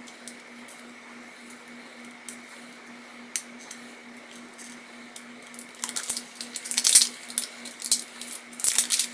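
Product packaging being handled: scattered crinkles and sharp clicks that get busier and louder in the second half, over a faint steady hum.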